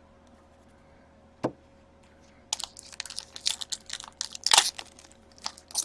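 A single sharp tap, then from about halfway a dense run of crinkling and tearing: a trading-card pack wrapper being torn open and handled.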